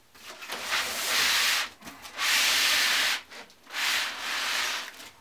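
Plastic bubble wrap rustling and scraping under a heavy rack-mount amplifier as it is slid and turned around on it, in three long pushes.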